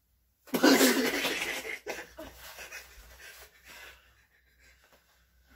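A loud burst of laughter about half a second in, trailing off into softer chuckles and breaths over the next few seconds.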